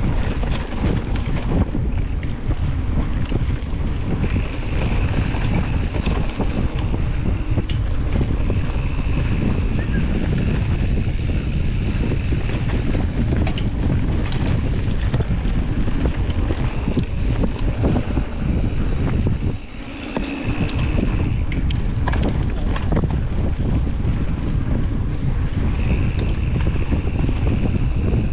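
Wind buffeting an action camera's microphone on a downhill mountain bike run, over the rolling noise and rattle of the bike on a rough dirt trail with many small knocks from bumps. A high buzz comes and goes several times.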